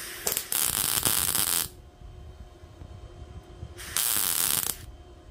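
Vevor gas-shielded MIG welder arc crackling in three bursts on thin sheet metal: a short one at the start, one of just over a second, and another of about a second near the end, as short stitch welds are laid into a gap.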